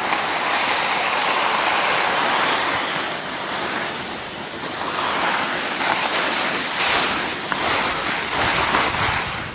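Skis sliding and scraping over snow, a steady hiss with a few sharper swells in the second half, with wind rushing over the microphone.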